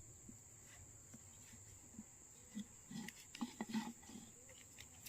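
Steady high-pitched drone of crickets, with soft rustling and light taps of things being handled, clustered between about two and a half and four seconds in.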